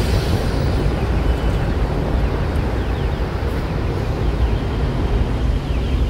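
Wind buffeting the microphone in gusts over a steady rumble of city traffic.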